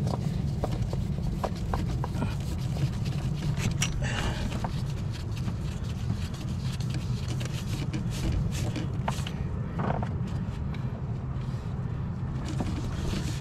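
Scattered light clicks and knocks of an oil filter and parts being fitted by hand, over a steady low rumble.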